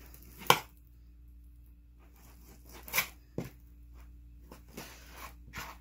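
Butcher's knife slicing fat off a piece of bear meat: a few short tearing cuts, the sharpest about half a second in and again around three seconds, with lighter strokes near the end.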